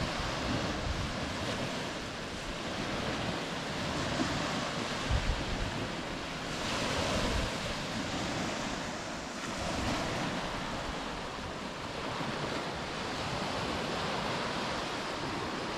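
Small waves breaking and washing up a sandy shore, the surf swelling and easing every few seconds. Wind buffets the microphone now and then with low rumbles.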